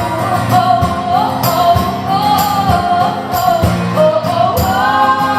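Live band music: a held, gently wavering sung melody with no clear words, over the band's accompaniment and regular drum hits.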